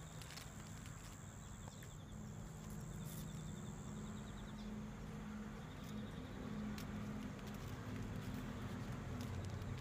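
Low steady engine hum that grows louder toward the end, with a few faint clicks.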